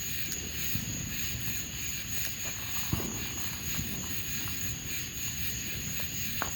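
A steady, high-pitched drone of night insects, with a few faint clicks and taps and a quick cluster of sharper clicks near the end.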